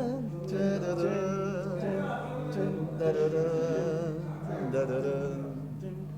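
A man's voice singing a slow melody in long, wavering held notes, with no clear instruments, over a steady low hum.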